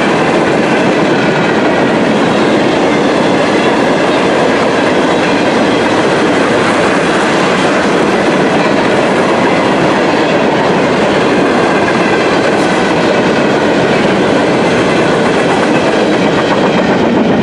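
Steel wheels of a string of Norfolk Southern coal gondola cars rolling past on the rails, a loud, steady rumble and clatter.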